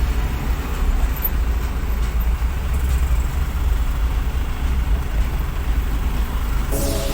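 Steady, deep diesel rumble of a heavy machine running, most likely the excavator loading sand. Music comes in near the end.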